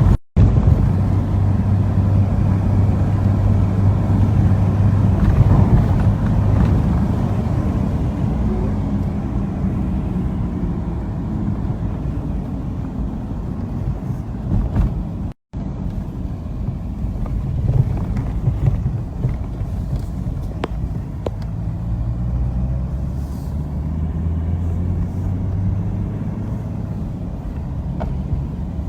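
Car engine and road noise while driving, a steady low rumble whose pitch shifts as the car speeds up and slows, broken by two brief dropouts.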